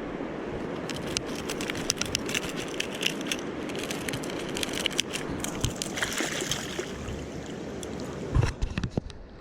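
Mountain stream water rushing steadily, with many small sharp ticks and splashes over it and a single low thump near the end.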